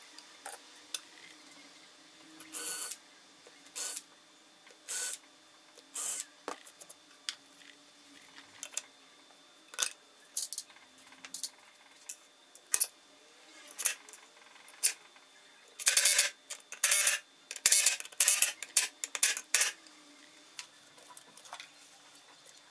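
Pencil scratching on a birch plywood panel in short strokes while marking along a spirit level, with light knocks of the level and tools being handled; the strokes come in a quick run about two thirds of the way through.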